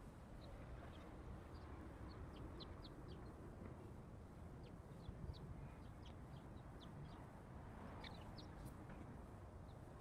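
Small birds chirping faintly: short, high chirps scattered irregularly throughout, over a low, steady outdoor background hum.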